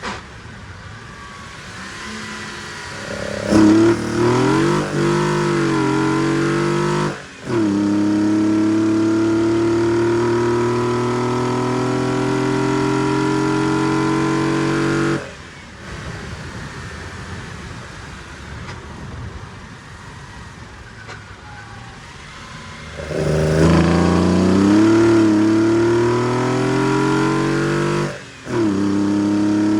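BMW E21's M20B20 two-litre straight-six on Weber DCOE 40 carburettors, idling, then revving up twice. Each time the revs climb, break off for a moment, then rise steadily again. After the first run it drops back to idle. The engine is not yet set up and the carburation is rich.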